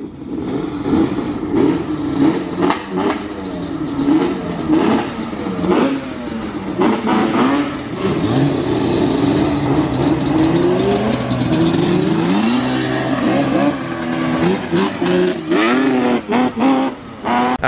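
Yamaha Banshee ATVs' two-stroke twin-cylinder engines revving and pulling away, pitch climbing and dropping again and again, with more than one engine heard at once.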